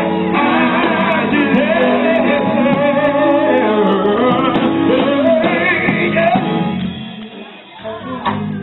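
Live gospel singing from a male vocal group with electric guitar and band accompaniment; the music fades down about seven seconds in.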